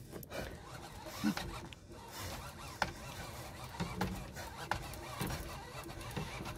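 Faint rubbing and rasping from a sea-fishing reel being worked by hand as line is wound in on a bent rod, with a few light clicks.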